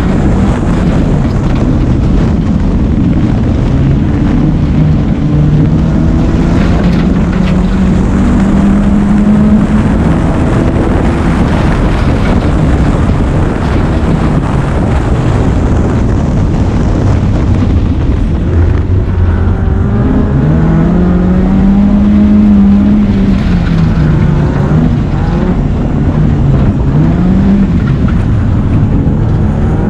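BMW rallycross car's engine heard on board at racing speed, revving up and dropping back repeatedly through gear changes and corners, the pitch weaving quickly up and down in the second half. Tyre and loose-gravel noise and wind run underneath.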